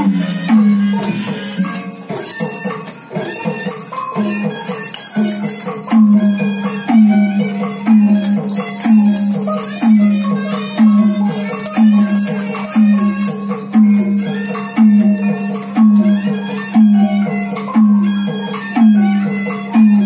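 Burmese traditional music accompanying a marionette horse dance. A low pitched beat settles into a steady pulse about every 0.85 seconds from about six seconds in. Above it run busier melodic notes and rattling percussion.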